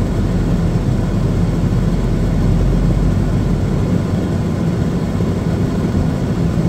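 Pushback tug's engine idling steadily, heard from inside the tug's cab with the aircraft's nose gear held in its cradle; the sound is low-pitched and unchanging.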